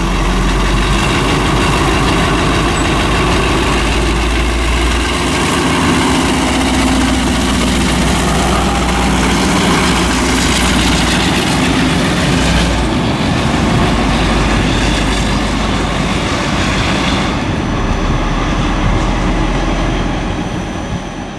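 Heavy diesel locomotive passing close by, its engine running with a steady low rumble under wheel and rail noise.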